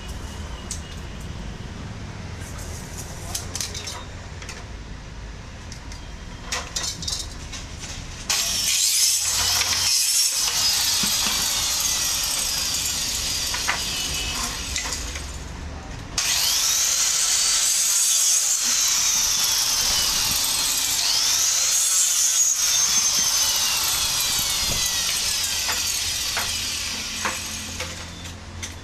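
Scattered light clicks and knocks of handling. Then, from about eight seconds in, an electric power saw cuts through board in two long, loud stretches, its high whine dipping and rising as the blade takes the cut.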